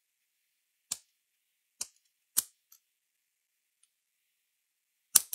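Sharp small clicks, about half a dozen with dead silence between them and a quick pair near the end, as a metal BGA reballing stencil is turned and seated over the chip in its holder.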